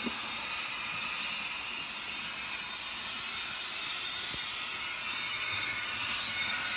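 Märklin H0 model train running on the layout's track: a steady rolling rattle of small metal wheels with motor whine, growing a little louder near the end as the train comes closer.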